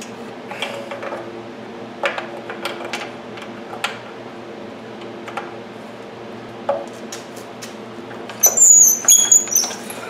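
Scattered clicks and knocks of hands working on a Stihl TS 350 cut-off saw while its spark plug is grounded out. About eight seconds in come several quick, loud pulls of the saw's recoil starter cord, with a whirring rattle, cranking the engine to check for spark.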